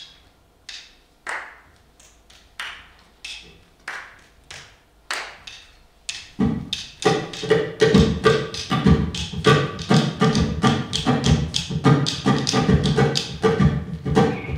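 Percussion: separate struck hits, each ringing briefly, about every two-thirds of a second, then about six seconds in a fast, dense drum rhythm takes over, much louder.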